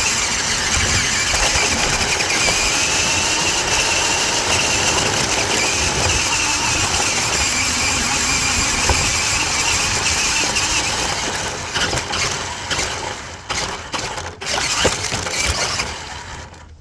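Toy RC truck driving with the camera riding on it: its small electric motor and plastic gears whine, rising and falling with speed, over a loud rattle of the chassis and wheels on the ground. In the last few seconds the noise turns uneven with a few sharp knocks, then drops away as the truck stops.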